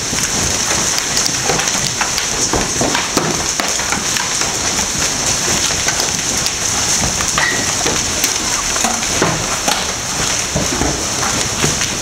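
Hailstorm with golf-ball sized and bigger hailstones pelting down: a dense, steady clatter of many sharp impacts over a constant rushing noise.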